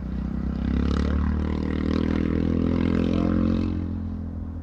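Airbus A380 jet engines running as the airliner taxis: a low rumble with a whine that grows louder and climbs slightly in pitch about a second in, then eases off near the end.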